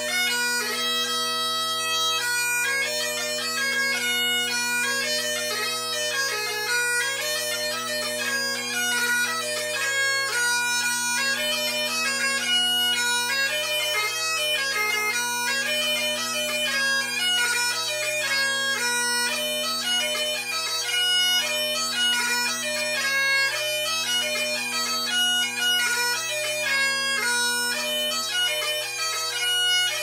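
Great Highland bagpipe played solo: steady bass and tenor drones sounding continuously under a quick, ornamented chanter melody.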